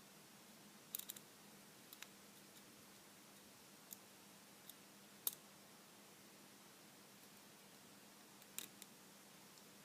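Faint, sparse metallic clicks and ticks of a lock pick and tension tool working the spool-pinned pin stacks inside a Lockwood 334C45 padlock, a quick cluster about a second in, single clicks scattered through the middle, and another cluster near the end, over a faint steady hum.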